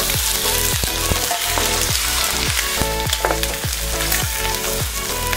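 Raw chicken pieces sizzling as they fry in hot oil in a nonstick pan, turned over with a wooden spatula. Background music with a steady beat runs underneath.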